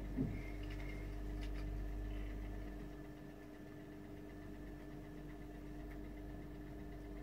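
A steady mechanical hum with several fixed tones, like a motor running, easing slightly in level about three seconds in.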